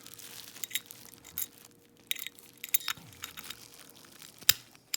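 Metal keys clinking and jingling in short scattered clicks while being tried in a padlock, with one sharp, loud metallic click near the end.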